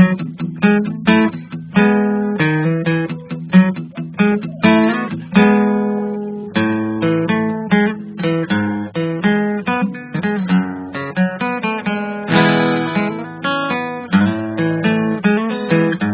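Acoustic guitar music: a continuous run of plucked notes and strummed chords, each note starting sharply and dying away.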